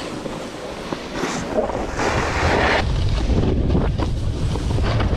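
Wind buffeting the microphone of a snowboarder's action camera during a downhill run, rumbling louder from about two seconds in, mixed with the hiss of the snowboard sliding and scraping over the snow.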